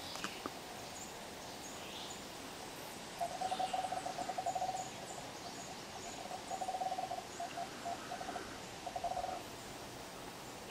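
A rapid, pitched trill of a calling animal, repeated in about four bursts, the first and longest lasting over a second, over faint repeated high chirps.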